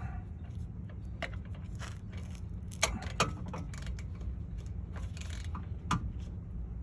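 Hand tools clinking: a ratchet, extension and socket being fitted onto a rear hub bolt. The clinks are scattered, with the sharpest pair about three seconds in and another near the end.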